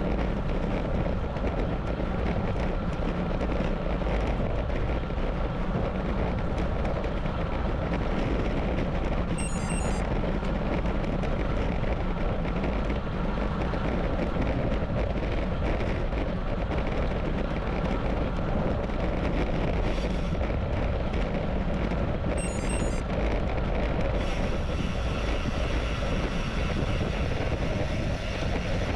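Steady rushing of wind on a GoPro's microphone mixed with road-bike tyres rolling on pavement while riding along. Twice a short high chirp cuts through the noise.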